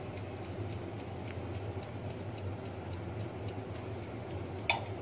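Electric oven running with a steady low hum while puff pastries bake inside, with faint crackling and sizzling from the pastry as it cooks. One sharper click near the end.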